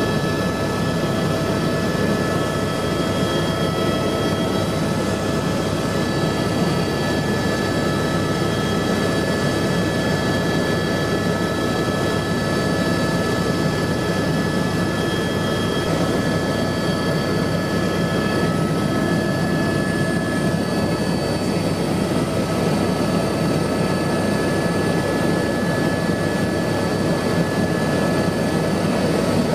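Turbine helicopter in flight, heard inside the cabin: a steady dense rotor and engine noise with a high turbine whine of several held tones over it.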